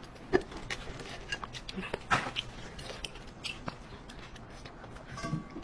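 Metal tongs clicking and scraping against a large oyster shell as the meat is pried out, with scattered light clicks of shell and utensil. A brief squeak near the end.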